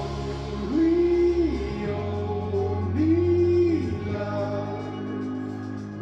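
A pop song on vinyl, played on a Royce Spectrum turntable through a Sansui A-510 amplifier and Castle Acoustics Richmond MK2 speakers: a singer holds two long wordless notes, one about a second in and another about three seconds in, over a steady backing.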